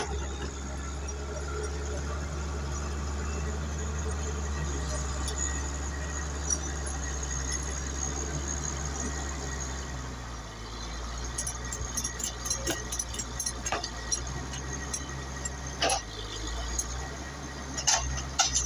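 Vehicle engine running steadily with a low hum; about halfway through, a run of sharp metallic clinks and knocks joins it.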